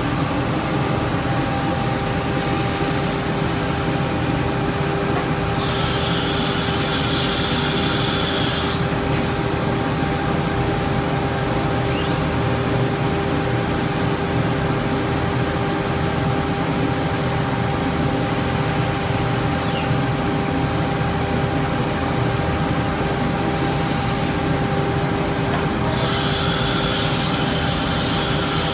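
Masterwood MW12.25K CNC nesting router running, a steady mechanical hum with two constant tones. A louder, higher hiss sets in about six seconds in for a few seconds and again near the end.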